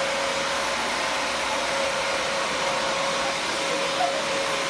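Vacuum cleaner running steadily: an even rushing noise with a constant faint tone.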